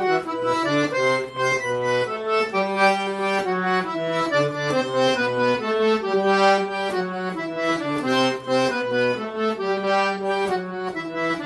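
Accordion playing an instrumental break: a melody of short notes over bass notes that change about twice a second.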